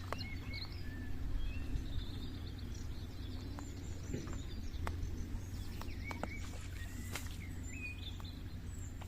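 Songbirds chirping and trilling over a steady low rumble, with a few light clicks.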